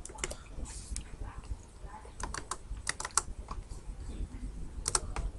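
Computer keyboard and mouse clicking: irregular single clicks and small clusters, with two clicks close together near the end.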